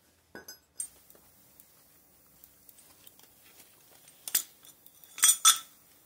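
Sharp metallic clinks and clanks as steel tongs and a steel ingot mold are handled in copper casting, a few light ones at first, then a louder knock and a quick cluster of three loud clanks near the end, over a faint steady hum.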